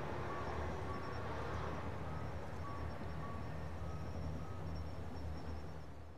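Diesel railcar engine running steadily with a low hum. It fades out near the end.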